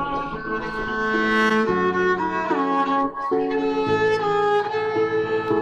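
Music played on bowed string instruments: held notes in a low part under a higher melody, the pitch changing every second or so.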